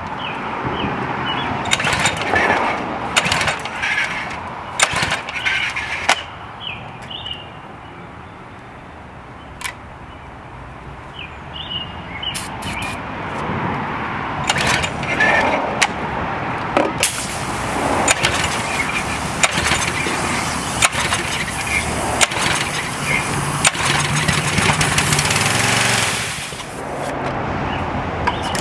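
Briggs & Stratton 6.75 small engine on a pressure washer being pull-started over and over, sputtering and firing unevenly without settling into a steady run. There is a quieter lull partway through. Typical of fuel starvation from a clogged carburetor.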